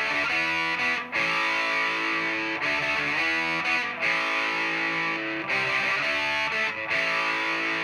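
Electric guitar played through an Exar Super Fuzz SF02 fuzz pedal: distorted, sustained chords that change every second or so, with brief breaks between some of them.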